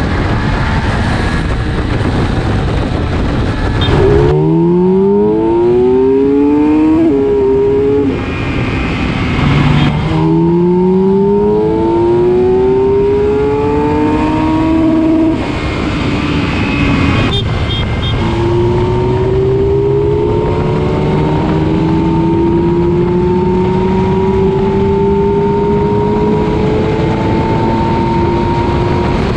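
Kawasaki Versys 1000's 1043 cc inline-four (slip-on exhaust) under full-throttle acceleration. The engine note climbs in pitch and drops back at each upshift, about four times, then climbs slowly in a high gear. Heavy wind rush throughout.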